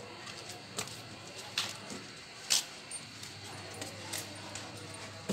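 A metal tether chain on a goat clinking and rattling in a few short, sharp bursts, the loudest about halfway through.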